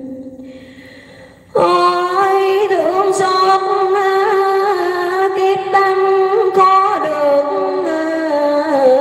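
A woman's voice singing a Vietnamese verse poem in a slow, drawn-out chant, close on a microphone. A note fades away over the first second and a half, then she comes in loud on a long held, slightly wavering note that steps down in pitch about seven seconds in.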